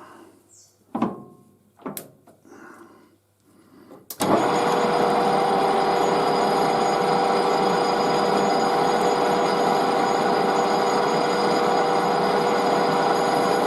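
A few light knocks, then about four seconds in a lathe starts up and runs steadily with a constant hum, turning down a metal part for the light fitting.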